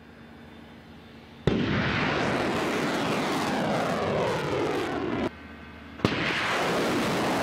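Ballistic missile launch: the rocket motor's roar starts abruptly about a second and a half in, with a falling whoosh as the missile climbs. It breaks off briefly and a second launch roar starts suddenly about six seconds in.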